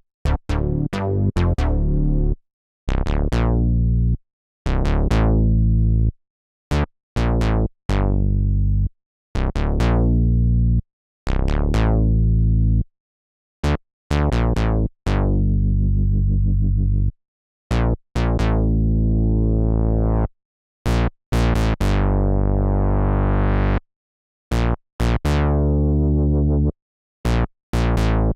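Synapse Audio Obsession virtual analog synthesizer, an Oberheim OB-Xa emulation, playing held chords and notes with short silences between them. Most notes start bright and quickly darken as the filter closes, and a few toward the end sweep brighter instead.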